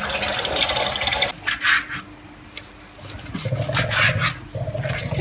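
Kitchen tap running into a stainless steel pot in the sink, stopping abruptly about a second in. After that it is quieter, with a couple of short sounds.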